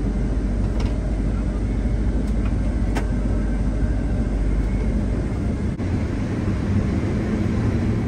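New Holland combine running steadily at harvest, heard as a constant low drone, with a brief dip in the sound just before the six-second mark.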